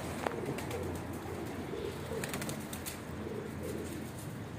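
Domestic pigeons cooing, several overlapping coos, with a sharp click about a quarter second in and a few light clicks around the middle.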